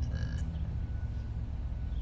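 A short, croaky burp in the first half-second, over a steady low background rumble.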